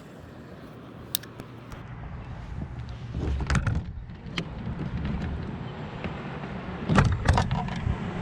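Knocks and clicks of gear being handled on a fishing kayak, over a low rumble; the loudest knocks come near the middle and near the end.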